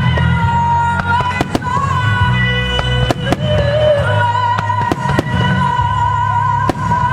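Fireworks bursting with a series of sharp cracks and bangs over loud music played through the show's loudspeakers: a sustained melody with a steady bass underneath.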